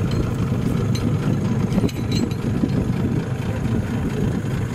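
A boat's motor running steadily at low speed with a low rumble.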